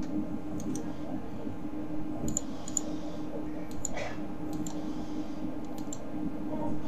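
Computer mouse clicking several times, some clicks in quick pairs, over a steady low hum.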